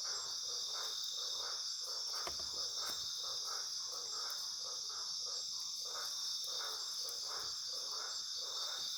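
Night chorus of crickets and other insects: a steady high-pitched buzz, with a lower call pulsing evenly about twice a second.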